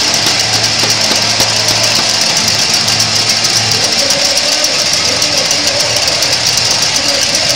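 Large stadium crowd cheering as the team takes the field, with many cowbells clanging rapidly and without a break.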